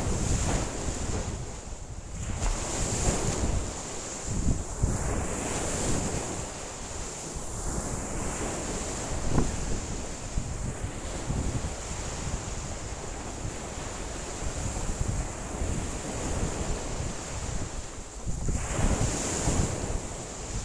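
Lake waves breaking and washing ashore in a strong wind. Gusts buffet the microphone with a low rumble, and the sound swells and eases every few seconds. There is one sharper hit about nine seconds in.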